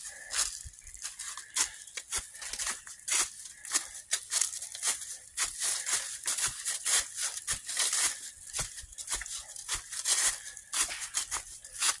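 Footsteps crunching and rustling through a thick layer of dry fallen leaves, step after step at a walking pace.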